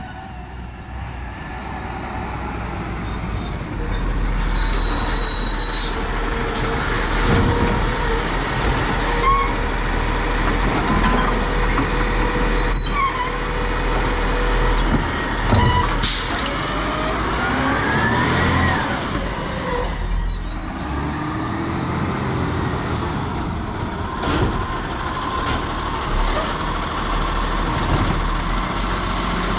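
New Way Sidewinder automated side-loader garbage truck working: the engine runs throughout and the air brakes hiss several times. Its hydraulic arm lifts and tips a cart about halfway through, with a sharp knock and a whine that rises in pitch and then falls away.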